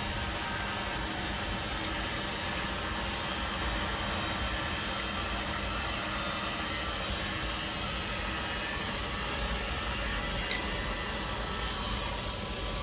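Diesel air heater's blower fan running steadily during start-up, with the glow plug preheating and no fuel burning yet.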